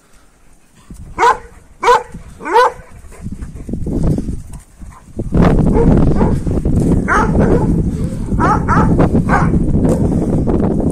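Large shepherd dogs barking in short, upward-sweeping barks: three in quick succession about a second in, then a further run from about seven seconds. From about five seconds a loud steady rushing noise lies under them.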